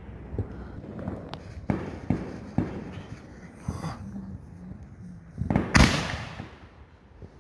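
Fireworks going off: a few scattered sharp pops, then about five and a half seconds in a louder burst whose noise trails off over about a second.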